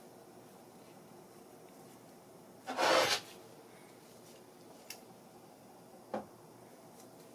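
Handling noise from a metal valve spring compressor tool being worked by gloved hands: a half-second scrape about three seconds in, then a light click and a short knock a few seconds later.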